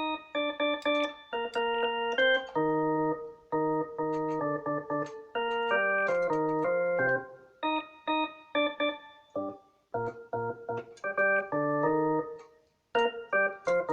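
Casio CTK-3500 keyboard playing its drawbar organ voice: a melody of single held notes with an organ-like tone, each starting and stopping sharply, with a few brief pauses between phrases.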